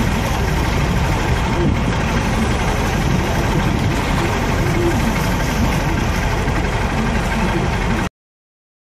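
Street traffic: car engines running as cars drive past close by, a steady rumble that cuts off abruptly into silence about eight seconds in.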